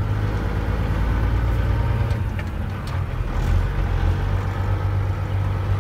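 Tri-axle dump truck's diesel engine running under way, a steady low drone heard from inside the cab, easing off briefly about halfway through.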